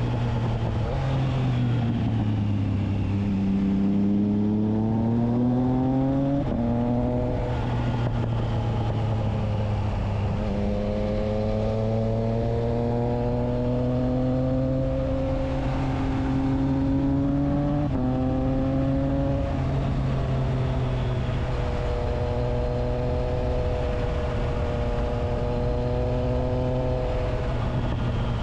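Triumph Trident 660's inline three-cylinder engine running through a Spark exhaust with the dB killer fitted, its pitch climbing slowly under throttle, then stepping abruptly twice, about a third of the way in and again just past halfway, before holding fairly steady through the last third.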